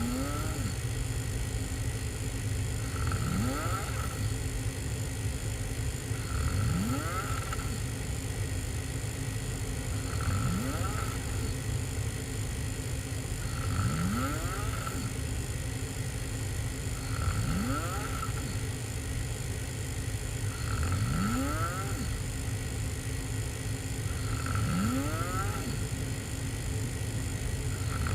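A person snoring hard through an open mouth while lying on their back. One snore comes about every three and a half seconds, each rising in pitch, over a steady low hum.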